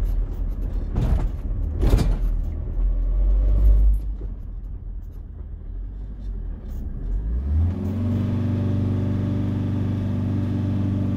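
Ford Transit van's engine heard from inside the cab, running with a low rumble; about eight seconds in the revs climb and then hold at a steady drone.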